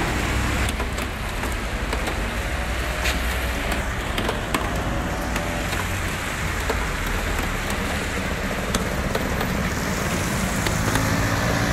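Steady rain falling on a wet street, with scattered sharp drop ticks close to the microphone. Under it runs the low rumble of traffic on the wet road.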